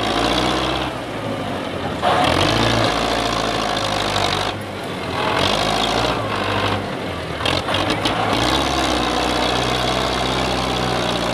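Belarus 510 tractor's diesel engine running hard under heavy load as it strains to drag a bogged trolley out of sand. The engine gets louder about two seconds in and eases briefly near the middle.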